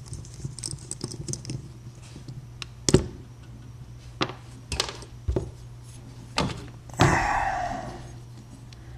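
Small metal lock parts and tools being handled on a hard work surface while a pin-tumbler lock is taken apart: scattered clicks and taps, then about seven seconds in a sharp metallic clink that rings for about a second.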